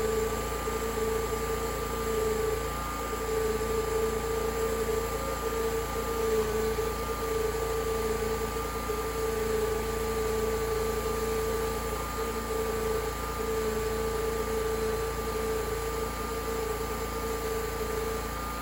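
Homemade sawmill running at a steady speed, a continuous machine hum with two held tones over an even noise.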